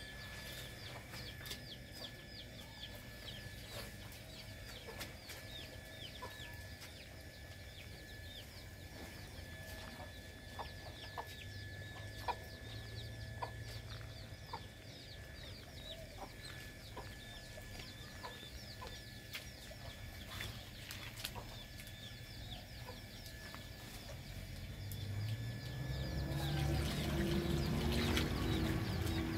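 Chickens clucking among many quick, small chirps. Near the end a louder low sound rises and holds.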